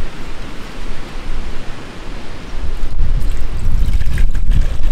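Water pouring from a collapsible water bag into a metal camping pot, over a low rumble of wind on the microphone that grows louder from about three seconds in.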